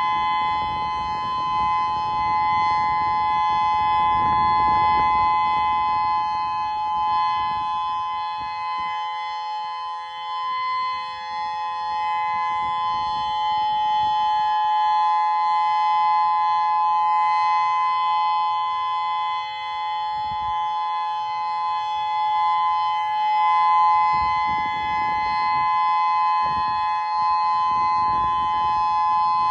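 Federal Signal Modulator 6048 electronic outdoor warning siren sounding a steady alert tone: two close pitches held together without rising or falling, with some low rumbling noise underneath at times.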